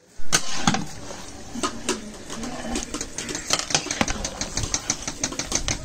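A long metal ladle stirring rice through boiling biryani in a large aluminium pot, clicking and scraping against the pot. The clicks grow quicker and more regular in the second half, about five a second.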